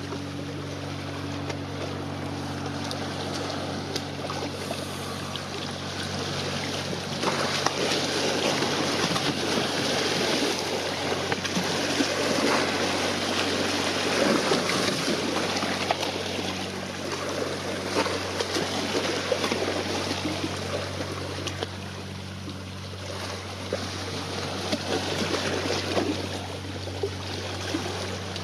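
Wind gusting on the microphone over choppy sea water, louder for a stretch in the middle, with a steady low hum underneath.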